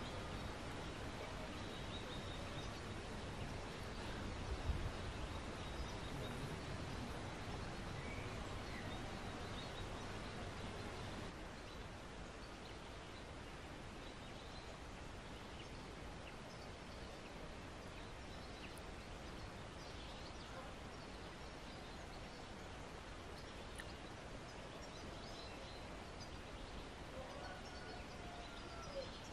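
Outdoor rural ambience: a steady low hiss of open air with faint, scattered bird calls.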